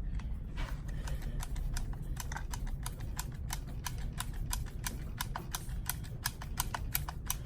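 A rapid run of light, sharp clicks, sparse at first and settling into about five or six a second from about two seconds in.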